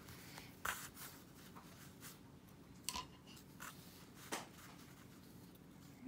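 A few short, sharp clicks and taps as acrylic paint supplies are handled on the work table, over a faint steady hum.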